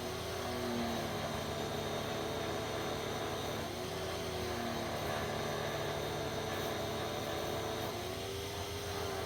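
Pressure washer running steadily: engine drone under the hiss of the water spray. Its tone bends briefly three times.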